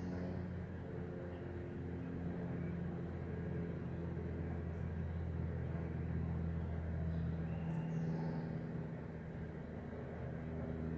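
Distant diesel freight locomotive engines: a low, steady drone that swells a little in the middle and eases off toward the end.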